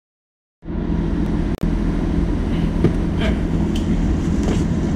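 Mazda Miata's four-cylinder engine idling steadily through a RoadsterSport Race single exhaust muffler, heard from inside the car; it cuts in abruptly about half a second in, with a brief dropout a second later.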